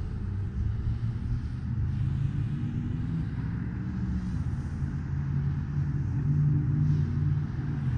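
Steady low rumble with a motor's hum drifting a little in pitch, typical of a running motor vehicle.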